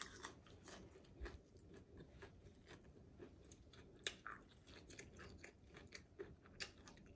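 Faint chewing: a person eating, with irregular small clicks and crunches of food in the mouth.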